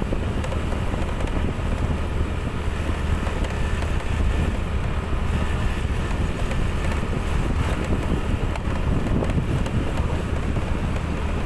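Steady engine and road noise from a moving vehicle with a low drone, mixed with wind buffeting the microphone as it travels along the road.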